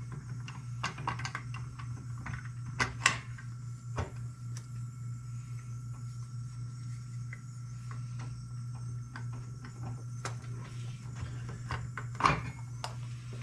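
Scattered light clicks and taps of metal parts being handled as a two-stroke engine's clutch assembly is worked onto its shaft, where it sticks on an O-ring. A sharper knock comes about three seconds in and another near the end, over a steady low hum.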